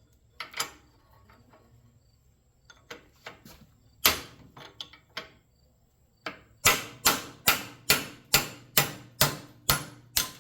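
Hammer blows on a steel punch, driving a press-fit steel insert out of a copper contact: a few scattered strikes and light taps, then a steady run of about nine blows, two to three a second, near the end.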